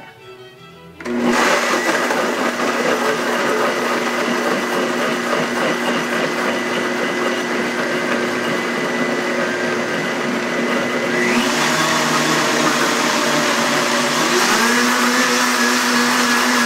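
Countertop blender starting up about a second in and running steadily, blending a pumpkin smoothie. Its motor pitch rises a little two-thirds of the way through and again near the end.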